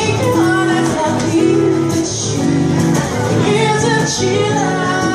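A woman singing, holding long notes, with acoustic guitar accompaniment.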